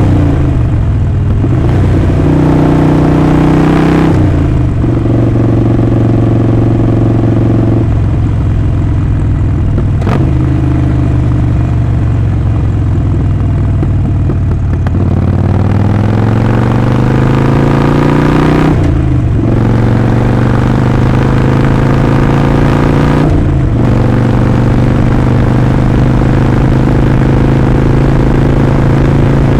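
Harley-Davidson Sportster Forty-Eight's air-cooled 1200 V-twin running on the move with its exhaust note, the pitch climbing under throttle and dropping with brief throttle lifts at gear changes, twice in the latter part.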